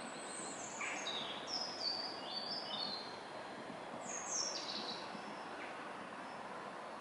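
A small bird singing two short phrases of high, quick notes that step downward, the first about half a second in and the second about four seconds in, over a steady background hiss of outdoor ambience.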